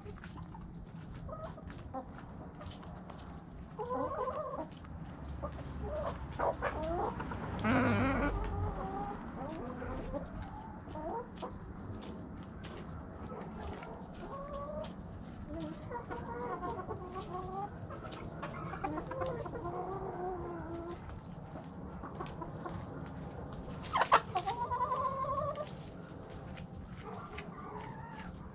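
Domestic chickens clucking, with many short overlapping calls throughout, louder about a third of the way in and with a sharp, loud call near the end.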